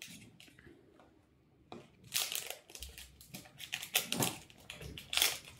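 A few light clicks, then from about two seconds in a dense crinkling and crackling as the label is torn and peeled off a plastic water bottle by hand.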